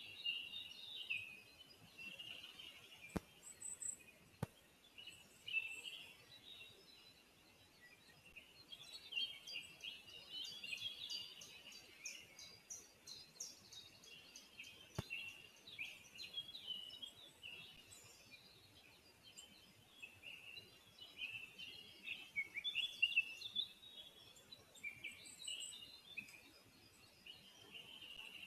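Small birds chirping and singing on and off in the surrounding forest, picked up by the nest-camera microphone, with a few faint clicks.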